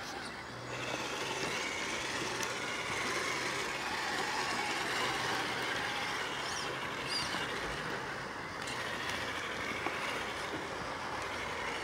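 Electric motor and geared drivetrain of a scale RC rock crawler whining steadily as it crawls over rocks and gravel.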